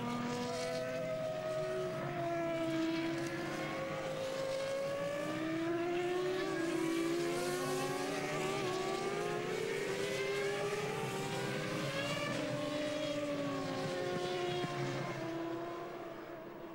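Several Formula One cars' 3.0-litre V10 engines running at low pace behind the safety car, their overlapping pitches rising and falling with the throttle. The sound fades near the end.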